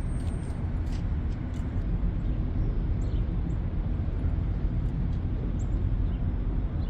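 Steady low rumble of outdoor lakefront ambience, with a few faint short high ticks.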